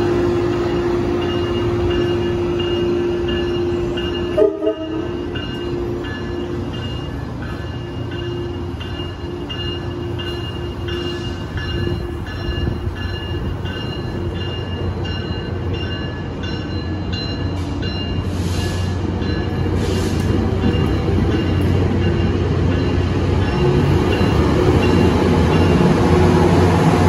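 A Tri-Rail commuter train rolls past close by: bilevel coaches with steady wheel and rail noise, a steady tone that breaks off with a sharp knock about four seconds in, and repeating high tones. The diesel locomotive's low engine hum grows louder near the end as it pushes past.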